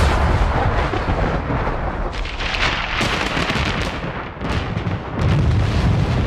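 Loud, continuous thunder rumbling, with several sharp crackling surges.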